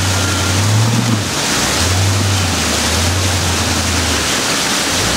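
Rushing creek water mixed with the low steady drone of an off-road rock crawler's engine. The engine note dips briefly about a second and a half in and again near the end.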